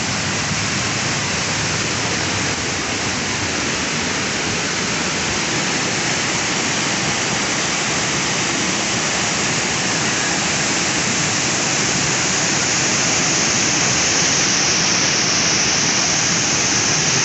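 Flash-flood water pouring over a waterfall and through a swollen river pool: a loud, steady rush of water that grows slightly louder near the end.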